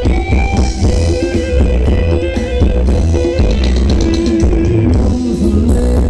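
Thai ramwong dance music from a live band, played loud through the PA: a guitar melody over heavy bass and a drum-kit beat.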